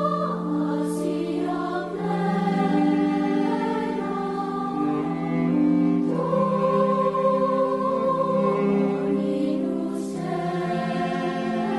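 A choir singing a slow piece in long held chords, with a couple of soft hissing consonants near the start and near the end.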